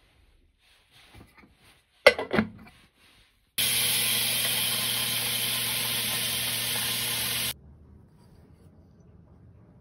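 Magnetic pin tumbler running, its motor humming steadily under a loud hiss of steel pins and water swirling in the drum, tumbling a brass brooch to polish and harden it. It starts about three and a half seconds in and cuts off suddenly about four seconds later; a sharp clatter comes shortly before it starts.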